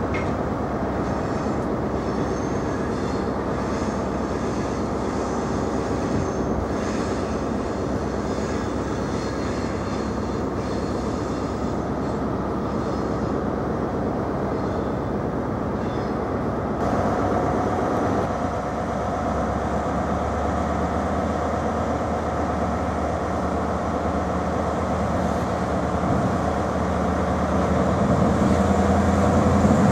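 Diesel engines of InterCity 125 (HST) Class 43 power cars running. The note changes abruptly about 17 seconds in and grows louder toward the end as another HST power car draws into the platform.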